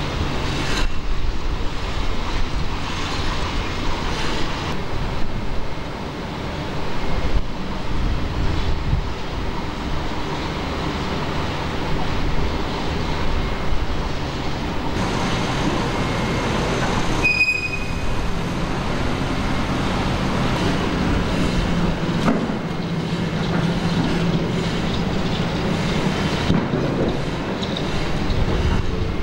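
Heavy crane machinery running: a steady low rumble and hum that grows a little stronger in the second half, with a brief high squeal about 17 seconds in.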